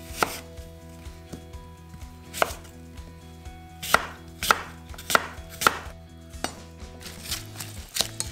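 Kitchen knife chopping an apple into chunks on a wooden cutting board: about seven sharp knocks of the blade on the board, most of them in a quick run around the middle.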